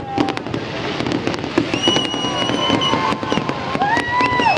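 Fireworks going off in a rapid, irregular string of sharp cracks and pops, with whistling tones held for about a second at a time.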